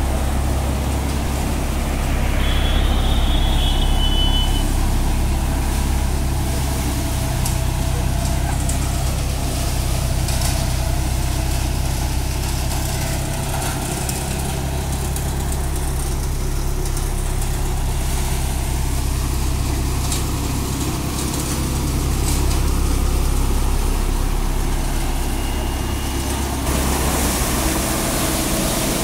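Tractor-powered threshing machine running steadily under load while straw is fed into it. A low, steady tractor-engine drone sits under the rushing noise of the thresher's drum and fans.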